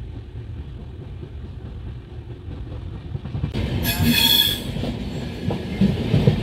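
Capital Express passenger train running on the rails, heard from inside a moving coach: a steady low rumble, a brief high-pitched wheel squeal about four seconds in, then wheel clatter over the rail joints.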